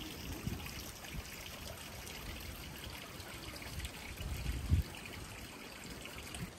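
Water trickling and running steadily in a small open channel. A brief low thud comes about four and a half seconds in, with a smaller one near the start.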